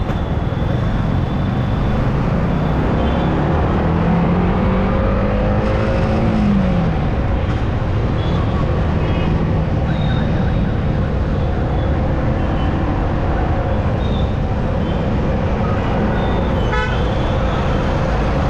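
Yamaha R15's single-cylinder engine running in slow city traffic over steady road noise; its note rises and then drops about six seconds in. Short horn toots sound from the traffic several times.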